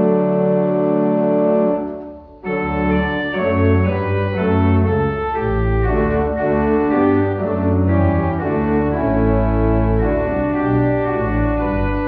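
Organ playing a hymn in sustained chords over a moving pedal bass; the sound breaks off briefly about two seconds in between phrases, then the next phrase begins.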